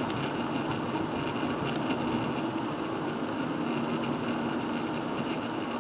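Steady cabin noise of a car driving on a rain-soaked road: an even hiss of tyres on wet pavement and rain, over a low hum.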